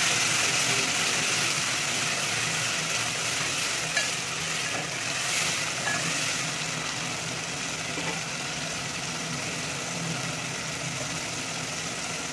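Chopped tomatoes and onions sizzling in hot oil in an aluminium pot, with a spoon stirring them and now and then tapping or scraping the pot. The sizzle slowly dies down.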